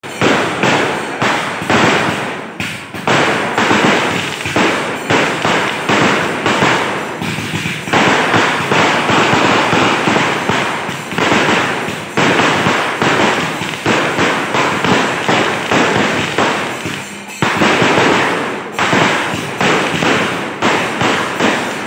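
Fireworks going off in a continuous barrage: rapid bangs and crackling, one burst after another with hardly a pause, and a brief lull only once, near the end.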